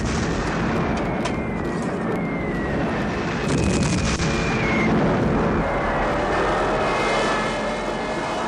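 Film battle sound of a Stuka dive-bombing attack: a continuous rumble of blasts and aircraft engines, with sharp blasts about one and three and a half seconds in. High whining tones slide slowly in pitch over it.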